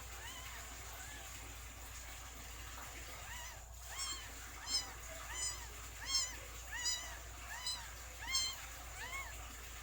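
Newborn kitten mewing: a run of short, high, rising-and-falling cries, faint at first, then about eight louder ones in quick succession over roughly five seconds.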